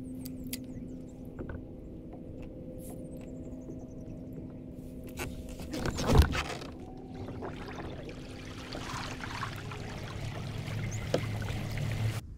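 A loud knock about halfway through, then water rushing along a fishing kayak's hull with a low hum as the kayak gets under way. A few high bird chirps near the start.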